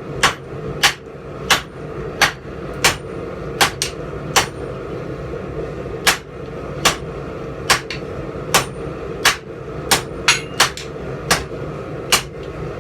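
Heavy hammer blows on hot steel over an anvil: the steel is being drawn out into a taper. About eighteen sharp, ringing strikes come at roughly one and a half a second, with a short pause near the middle and a few quick doubled blows.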